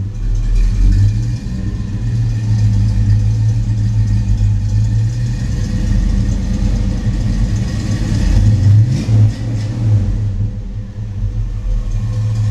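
1968 Buick GS 400's 400-cubic-inch (6.6 L) V8 idling steadily through its dual exhaust, with a short blip of the throttle about eight and a half seconds in.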